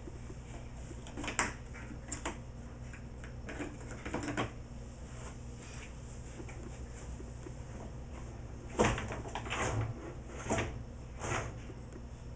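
Dishwasher rack being pushed in and pulled out on its rails: a series of short rattling clacks and rolling knocks, the loudest about nine seconds in, over a steady low hum.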